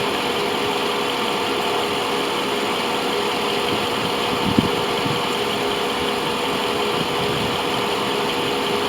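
2001 Mercedes S55 AMG's V8 idling with the air conditioning running at full blast: a steady running noise with a low hum. It is being recharged with refrigerant. One sharp click comes about halfway through.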